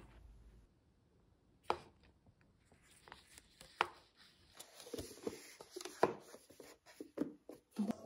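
Scattered light taps and knocks with some rustling as a paper instant-noodle cup and its plastic wrapper are handled on a table, growing busier in the second half.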